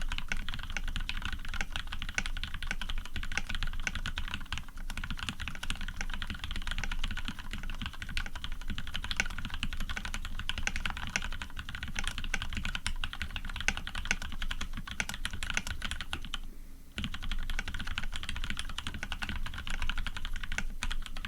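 Fast, continuous typing on a custom Orion v2.5 mechanical keyboard with Cherry Retooled Black linear switches lubed with Krytox 105, an aluminium plate and PBT keycaps. Key strikes clatter densely with one brief pause about three-quarters of the way in.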